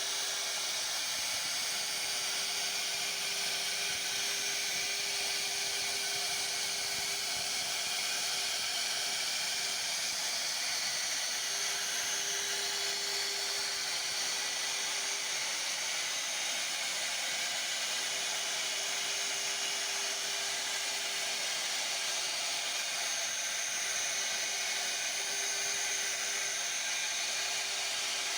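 1325 CNC router's spindle running and cutting wood: a steady hiss with a faint pitched hum that breaks off and comes back several times.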